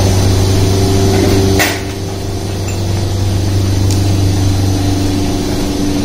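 A steady mechanical hum, like a motor running, with one sharp click about one and a half seconds in, after which the hum drops a little and slowly comes back up.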